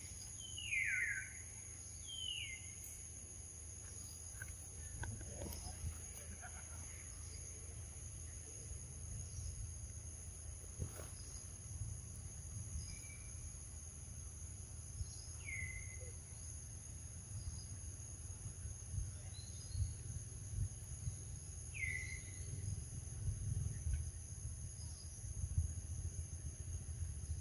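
Steady high-pitched drone of insects, with four short calls that sweep quickly downward in pitch, two near the start and two later on.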